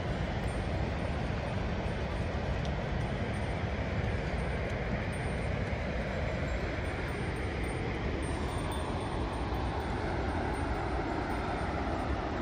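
Steady rushing roar of the Rhine Falls, a large waterfall of churning white water.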